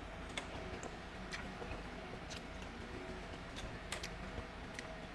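Quiet eating sounds while chewing balut and handling a spoon: a few faint, sharp clicks, about one a second, over a low steady hum.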